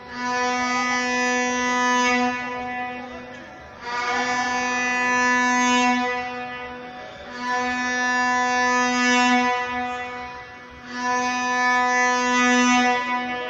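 A stadium horn blown by a fan, in about four long blasts of roughly three seconds each on one unchanging low note, with short breaks between them.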